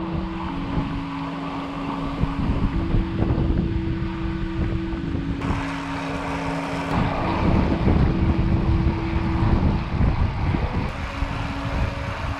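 Wind buffeting an action camera's microphone on a moving bicycle, a rough, gusting rush. Under it, background music holds long, steady notes that change every second or two.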